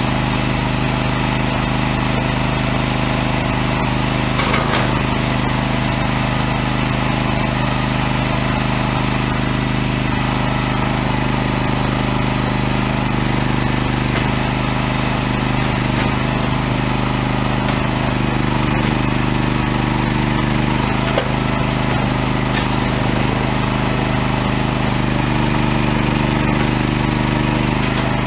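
Regon R1 firewood processor running steadily, a constant engine drone. There is a brief knock about four and a half seconds in.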